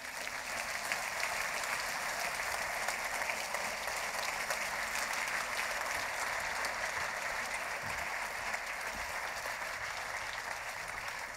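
Audience applauding steadily in a large hall: many people clapping at the end of a talk.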